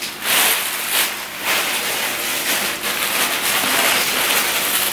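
Black plastic bag rustling and crinkling steadily as it is handled and unwrapped, with surges as it is pulled and squeezed.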